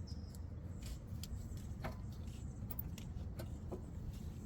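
Scattered light metallic clicks and taps as rear brake parts are handled and refitted to the caliper, over a steady low background rumble.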